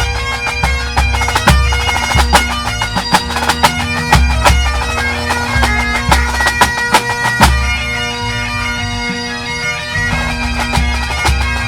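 A full pipe band playing. Great Highland bagpipes carry the melody over a steady drone, with snare and bass drums beating along. The drums fall away for a couple of seconds past the middle, leaving the pipes alone, then come back in.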